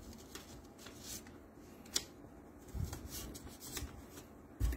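Hands handling and fitting small plastic parts on a copier's developer unit: scattered light clicks and rubbing, with a dull knock about three seconds in and another near the end.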